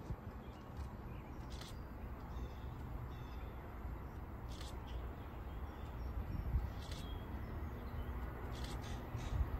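Steady low outdoor rumble with a few faint, short high ticks spread through it; the rumble grows a little louder near the end.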